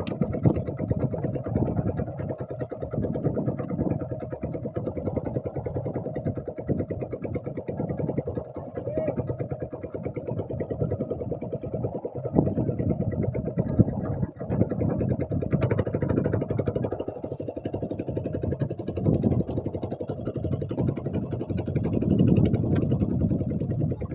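Boat engine running steadily at idle.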